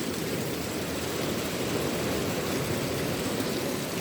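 Small waterfall of fresh spring water pouring and splashing steadily.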